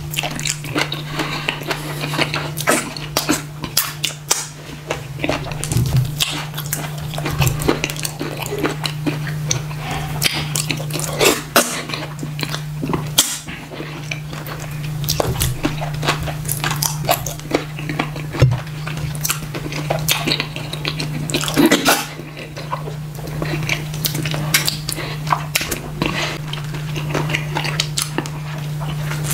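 Close-up mouth sounds of a person eating ogbono soup and fufu by hand: wet chewing, smacking and slurping, with many short sharp clicks at irregular intervals, over a steady low hum.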